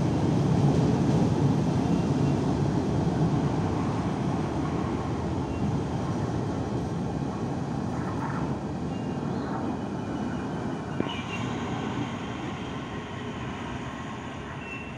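KTM Komuter Class 92 electric multiple unit running along the rails away from the station, its rumble fading steadily as it recedes.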